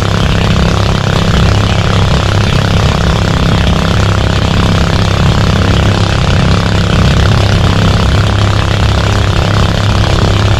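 A fishing boat's engine running loudly and steadily, with a constant rushing noise over it and no change in pitch.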